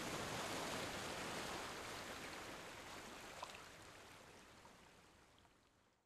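Ocean surf breaking and washing up a sandy beach, a steady rush that fades out gradually to silence.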